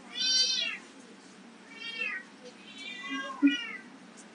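Kitten meowing repeatedly: four short, high meows, each rising then falling in pitch, the last two close together near the end.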